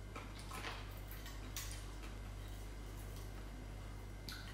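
Soft eating sounds: a few faint, irregular clicks of chewing and fingers picking at fried fish, over a steady low hum.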